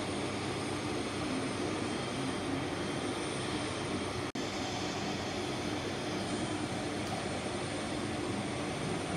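A de Havilland Canada Dash 8-300's twin Pratt & Whitney Canada PW123 turboprop engines running steadily at low ground power as the aircraft reaches its stand, a constant propeller-and-turbine drone. The sound cuts out for an instant about four seconds in.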